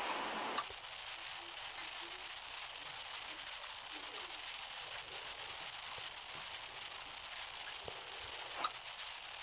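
Steady hiss of a video call's audio with the speech dropped out, broken by a few faint clicks and crackles: the connection is breaking up.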